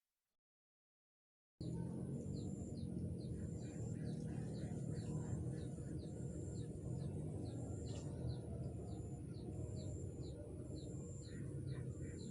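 After a second and a half of silence, outdoor ambience begins: a bird repeating short, falling chirps about twice a second, with a higher repeated note about once a second, over a steady low rush.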